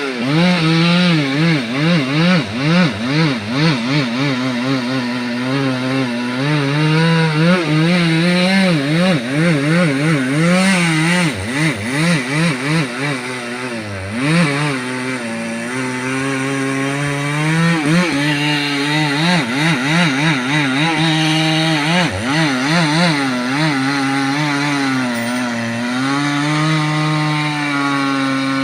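Chainsaw running under load while cutting logs, its engine pitch wobbling up and down quickly and continually as the chain bites into the wood.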